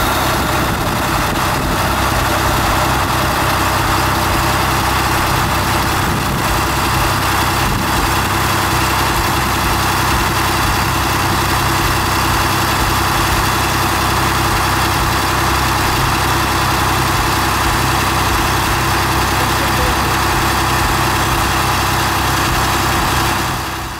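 Diesel engine running steadily with its clutch engaged, driving a water pump with water flowing through it. It fades away at the very end.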